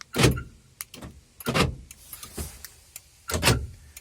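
VAZ-2114 central-locking door lock actuators working three times, about one and a half seconds apart, each a brief motor whirr and clunk, with small clicks between. The locks work again because the bad contact at a fuse by the alarm unit has been jiggled back into place.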